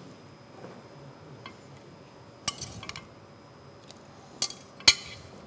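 Metal tongs clinking against a stainless steel cooking pot and serving plate as raw chicken pieces are lowered in: a few sharp clinks about halfway through and near the end.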